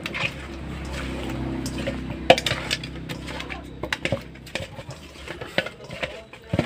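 Cut pieces of rohu fish being turned and rubbed by hand in a steel bowl to coat them with turmeric and salt: wet squelching and scattered knocks and clicks of fish against the metal, with one sharp knock about two seconds in. A low steady hum sits under the first half.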